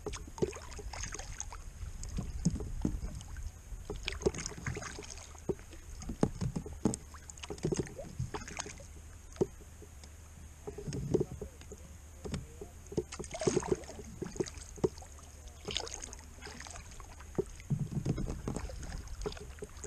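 Kayak paddling: the double-bladed paddle dipping and splashing in the water stroke after stroke, with scattered clicks and knocks, over a low steady rumble.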